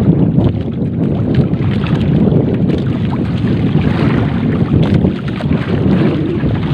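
Wind buffeting the microphone aboard a small fishing boat at sea: a loud, steady rumble with water sounds around the hull beneath it.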